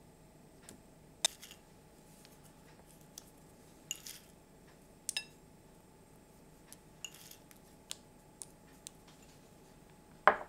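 Pumpkin seeds sprinkled onto a bowl of risotto, landing as scattered light ticks spread over several seconds, then a sharper knock near the end as a hand takes hold of the ceramic bowl.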